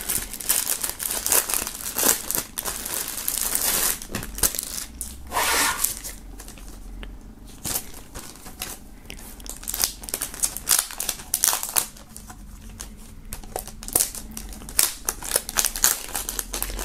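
Clear plastic shrink-wrap film being torn open and peeled off by hand, first from a packaged bandana and then from an embossed tin sign, crinkling and crackling in spells with short quieter pauses.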